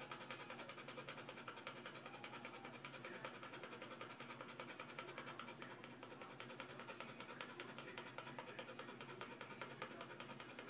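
Golden retriever panting rapidly and evenly with its mouth open and tongue out, shedding heat to cool off.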